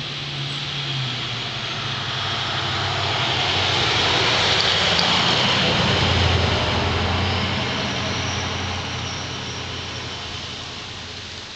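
A motor vehicle passing by: the engine and road noise swell to a peak about halfway through, then fade away.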